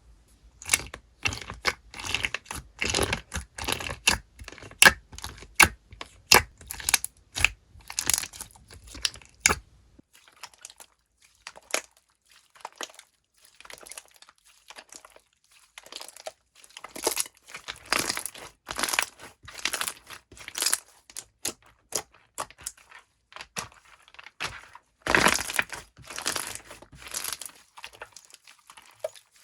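Watermelon slime being squeezed and poked by hand, making quick crackling and popping sounds. The pops come thick and fast, thin out and turn quieter for several seconds about a third of the way in, then pick up again.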